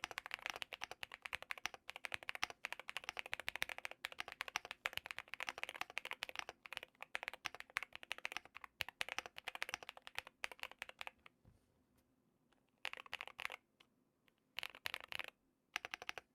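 Mechanical keyboard with Akko Creamy Blue Pro tactile switches (55 g actuation) being typed on quickly, a dense run of key clacks. The typing stops about eleven seconds in, and after that come only a few short bursts of keystrokes.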